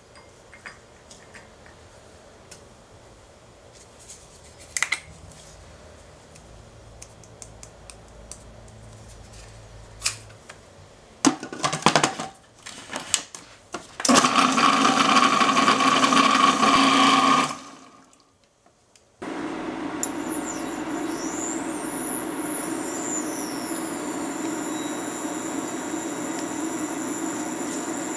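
Food processor blending soaked cashews with liquid into a paste: a few short pulses, then about three seconds of steady whirring that winds down. After a brief silence, a steady hum takes over.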